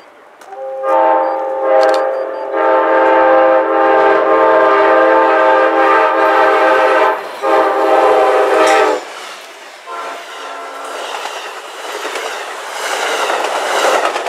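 Locomotive's multi-chime air horn sounding as the train approaches: a short blast, a long one, then another short one. Then the rising rush and clatter of the train's wheels on the rails as it passes close by, loudest near the end.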